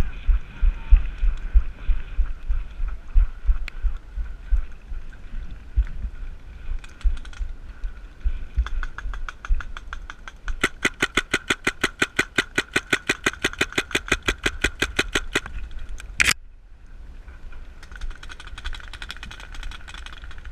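Heavy, irregular thumps of running, then from about nine seconds in a paintball marker fires a rapid string of shots, about eight a second, for some six seconds. One sharper crack follows near the end of the volley.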